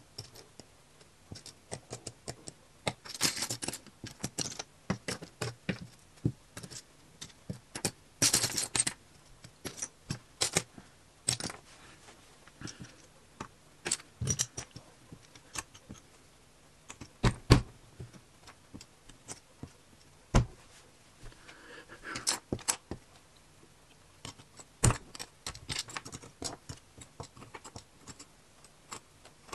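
Small plastic LEGO pieces clicking and rattling as they are picked up and pushed about with metal tweezers, in irregular taps. There are brief rattles about three and eight seconds in and a few sharper knocks in the second half.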